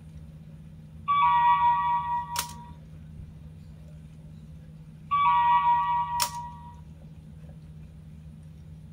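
Sony Aibo ERS-7 robot dog playing two short electronic tone phrases through its speaker, about four seconds apart, each ending with a sharp click, over a low steady hum.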